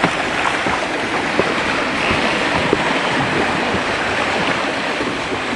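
Steady rush and splash of water along a small sailboat's hull under way, with wind noise.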